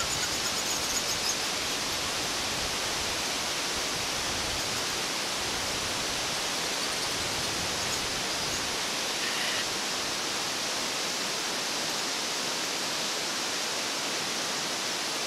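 Waterfall of many thin streams falling down a rock face, a steady rushing hiss. A faint high chirping trill near the start.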